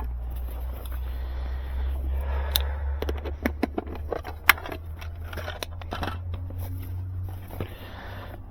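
Scraping, clicks and short knocks of hand equipment being handled and set against a surface, over a steady low hum.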